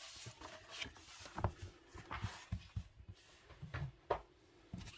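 A large paperback coloring book being handled on a wooden desk: pages rustling and the cover closing, with several soft knocks and slides of the book against the tabletop as it is lifted away.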